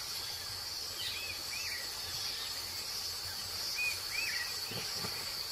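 Natural ambience: a steady high insect hiss, with four short rising-and-falling bird chirps in two pairs, the first pair about a second in and the second near four seconds.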